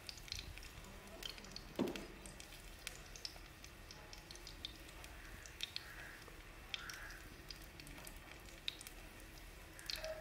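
A bread slice frying in shallow oil in a pan: faint steady sizzling with scattered small pops and crackles. One louder knock comes about two seconds in.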